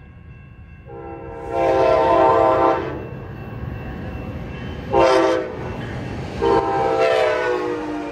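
Amtrak Cascades locomotive's multi-chime horn sounding the grade-crossing signal as the train approaches: a long blast, a short one, then a long one whose pitch drops at the end as the locomotive passes. The train's low rumble runs underneath.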